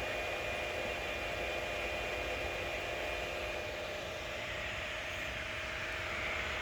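Steady whir of 3D printers running, mostly their cooling fans, with a couple of steady tones over an even hiss.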